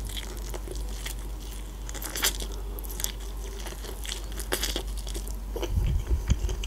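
Close-miked biting and chewing of kernels off an ear of corn on the cob: scattered soft crisp pops and clicks as the kernels burst, with a few low thumps near the end.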